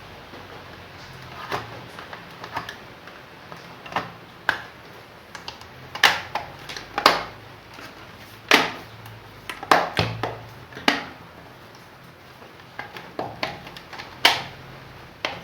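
Irregular plastic clicks and knocks, about a dozen, from an electric hand mixer's plastic casing being handled and fitted back together; the loudest come in the middle.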